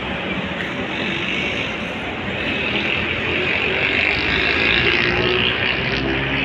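City bus driving up the terminal lane toward the listener, its engine and tyres growing louder through the middle of the clip over a steady background of traffic rumble.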